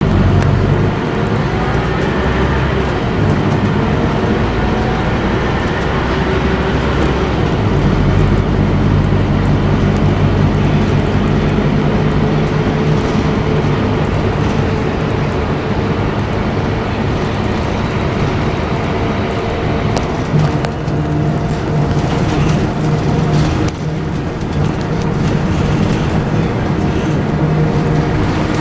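A Scania K230UB city bus's rear-mounted five-cylinder diesel engine running under way, heard from inside the passenger cabin. The engine note rises in the first few seconds and changes at about eight seconds in. Scattered light clicks and rattles come through in the last several seconds.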